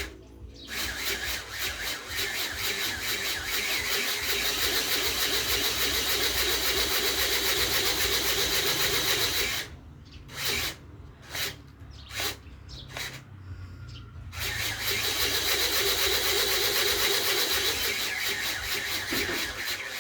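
Electric motor and propeller of an RC model airplane run up in a power test: held at high throttle with a steady whine, then blipped in several short bursts, then held high again.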